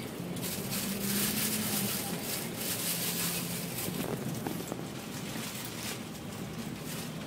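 Double-decker bus's engine running steadily as the bus drives through city traffic, heard from inside on the upper deck: a low engine hum that shifts a little in pitch, under a constant rush of road and wind noise.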